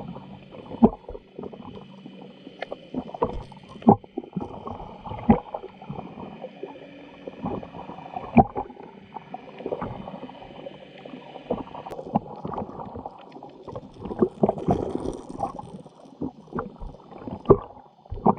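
Water sloshing and splashing, with irregular sharp splashes, as a person wades in shallow river water.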